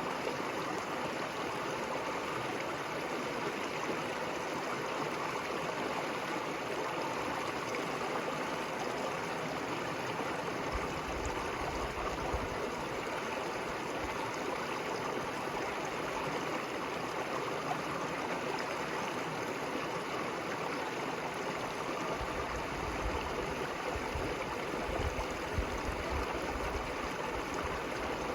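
River water flowing and babbling in a steady rush. Low rumbles come in briefly about eleven seconds in and again through the last few seconds.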